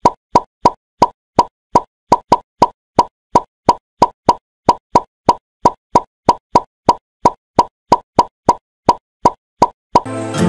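Edited plop sound effect repeated about three times a second, each short identical pop marking another bundle of matches popping into place in stop-motion. Music starts near the end.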